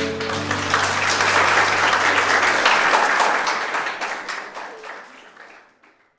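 A group of people applauding, the clapping full in the middle and fading away over the last two seconds.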